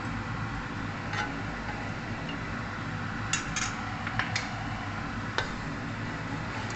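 Oyster sauce simmering in a non-stick pan as corn flour is stirred in to thicken it, over a steady low hum, with several sharp clicks of a utensil against the pan, most of them bunched between about three and four and a half seconds in.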